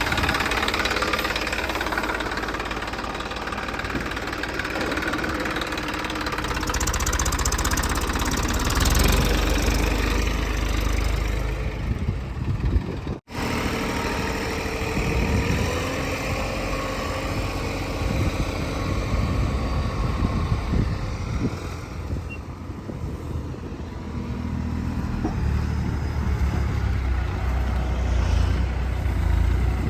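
Diesel engine of a JCB 3DX backhoe loader running while it works, its note rising and falling with the load. The sound drops out for an instant a little before halfway.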